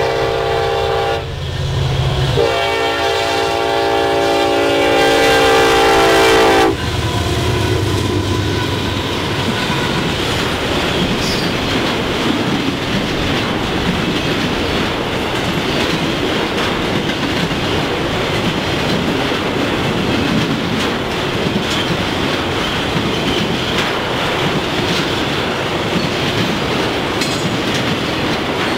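The horn of a Norfolk Southern diesel freight train, led by an SD70ACe locomotive, sounds twice: a short blast, then a longer one of about four seconds. The locomotives rumble past, then loaded flatcars roll by steadily with a clickety-clack of wheels on the rail joints.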